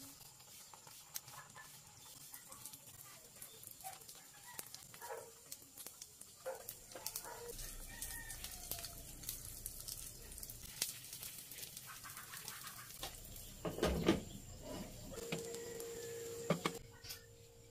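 Omelette cooking on low heat in a nonstick frying pan: quiet sizzling with scattered soft taps and clicks as grated carrot and cheese are dropped in and the remaining beaten egg is poured. A louder knock comes about fourteen seconds in, as the pan is covered, followed by a steady low hum.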